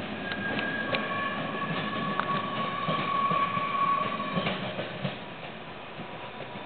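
SNCF track-measuring train with its Mauzin car rolling away from the station: wheels on rail with high steady squealing tones and scattered clicks over the rail joints, fading after about five seconds as the train pulls away.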